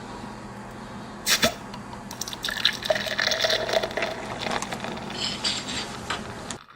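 Liquid running and splashing in irregular spurts, with a sharp knock about a second in; it stops abruptly near the end.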